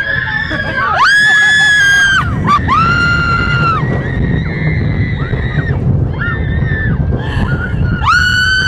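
Roller coaster riders screaming with delight: a series of long, high-pitched screams about a second each, the longest early on and again near the end, over the low rumble and wind of the moving train.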